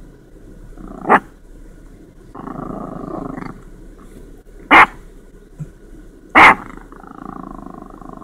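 Chihuahua growling low and letting out three sharp barks, one about a second in and two close together near the middle and two-thirds of the way through, with stretches of growling between them.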